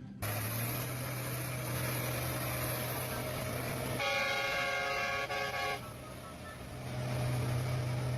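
A vehicle horn sounds one long blast of nearly two seconds, about four seconds in, over the steady hum and noise of a running engine.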